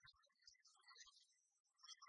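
Near silence: only faint, scattered low-level noise.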